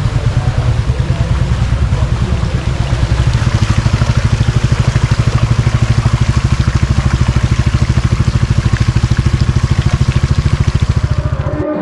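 Motorcycle engine running at low road speed, a steady low pulse of about ten beats a second, with wind rushing over the microphone; it cuts off suddenly near the end.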